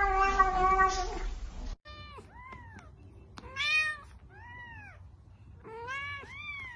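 A cat's long yowl held steady on one pitch, stopping suddenly after about a second and a half. Then several short cat meows follow, each rising and falling in pitch, with a louder one near the middle.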